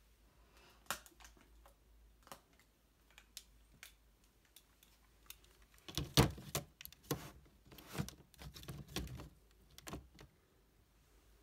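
Small plastic makeup compacts and containers clicking and knocking as they are handled and put away: scattered single clicks at first, then a busier run of knocks from about six to ten seconds in.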